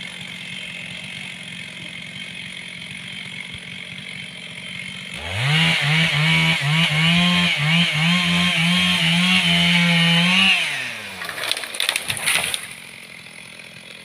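Chainsaw idling, then revved to full speed about five seconds in, its pitch wavering as it cuts into sengon wood for about five seconds before it drops back. A short burst of crackling follows about a second later.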